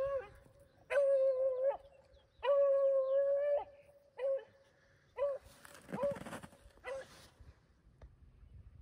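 Beagle baying on a rabbit hunt: two long, drawn-out bays, then four short, choppy yelps. A brief rustle or gust of noise comes about six seconds in.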